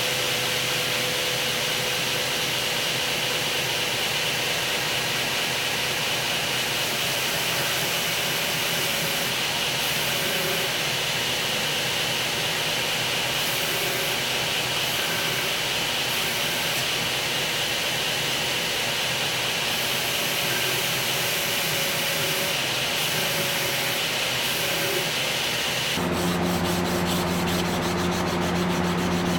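Belt grinder (2x72) grinding a steel knife blade: a steady abrasive grinding noise with the motor running. About three seconds before the end it changes to a steadier hum with a stronger low, pitched tone.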